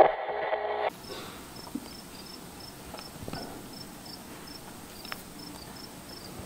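A brief, loud sound with a held pitch in the first second, then faint high-pitched chirps repeating about three times a second, insect-like.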